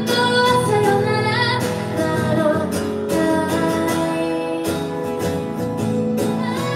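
A woman singing, accompanying herself on a strummed acoustic guitar. Her voice holds one long note in the middle.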